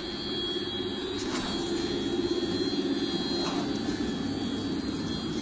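Automatic play dough extruding and packing machine running: a steady mechanical drone with a faint high, even whine over it.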